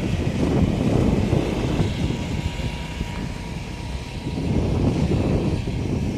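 Wind buffeting the microphone: a low, irregular rumble that swells, eases off around the middle, and swells again near the end.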